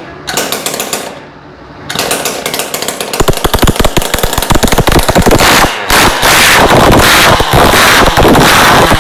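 The engine of a giant homemade mixer being started: a train of sharp firing knocks catches about two seconds in and speeds up. From about six seconds it runs loud and rough at speed.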